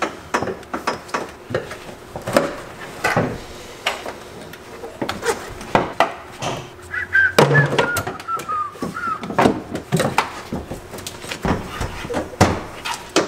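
Scattered clicks, knocks and clunks of steel tubes and tools being handled in a cramped car footwell, with a brief falling squeaky tone about seven seconds in.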